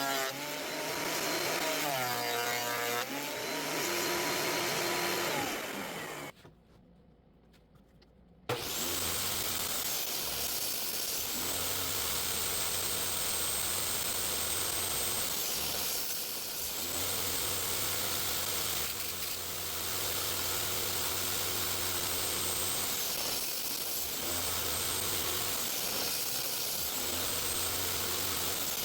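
Woodworking power tool running with a high steady whine that dips in pitch briefly every three to four seconds, as the motor takes load on repeated passes through the wood. Before that, a motor changes speed, then a short break to quiet.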